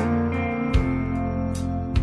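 Background music: a slow, gentle tune on acoustic guitar, with a few strummed chords.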